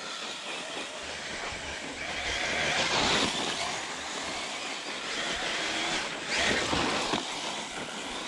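Custom 1/8-scale electric RC rally car driving hard on a loose dirt trail, its tyres churning and spraying dirt and gravel in a steady rushing noise. It swells louder about three seconds in and again around six to seven seconds.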